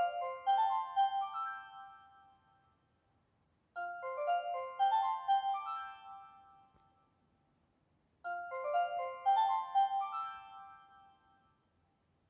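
JR East's original chime: a short phrase of quick, bright, bell-like notes that rings out and fades, played three times about four seconds apart.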